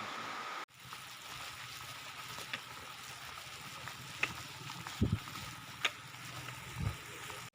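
Steady hiss of rain falling, with scattered sharp ticks of drops and a couple of low thumps near the end.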